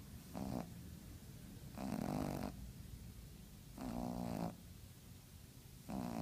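Pug snoring, a snore about every two seconds, four in all. The third snore has a buzzing, pitched rattle.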